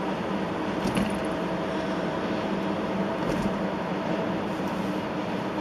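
Steady road and engine noise heard from inside a car driving on a wet highway, with a low steady hum and a couple of faint clicks, about a second in and past the middle.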